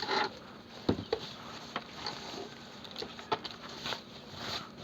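Box packaging being handled as a headset is lifted out: short rustles with scattered small clicks and knocks.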